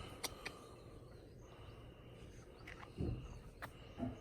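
Quiet outdoor background with a few faint sharp clicks and a brief low sound about three seconds in.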